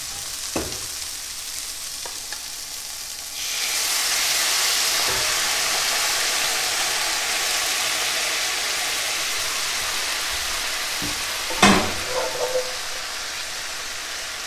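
Arugula, broccoli rabe and garlic sizzling in a hot cast iron skillet. About three and a half seconds in, shrimp shell stock poured into the pan hits the hot iron with a sudden loud hiss of boiling and steam that slowly eases. Near the end comes a sharp metal clank and a few clicks from the tongs and pans.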